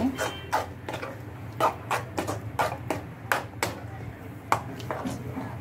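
A spoon knocking and scraping against a pan as boiled vegetables are mixed and mashed into bhaji: about a dozen irregular sharp knocks.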